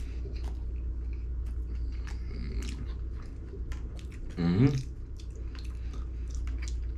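Close chewing and biting of a mouthful of salmon sushi with roe, with scattered small clicks of wooden chopsticks against the plastic soy-sauce tray. A short hum of the voice comes about halfway through.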